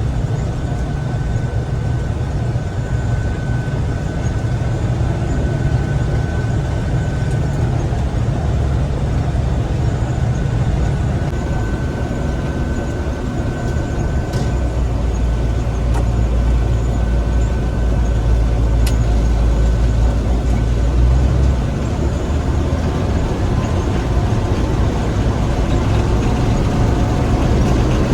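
Gleaner M3 combine running steadily, its engine and threshing machinery making a continuous low rumble with a thin steady whine above it. The rumble grows heavier for several seconds about halfway through.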